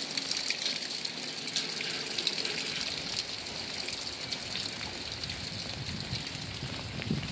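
Steady rain falling on wet ground and puddles, a continuous hiss dotted with the ticks of separate drops.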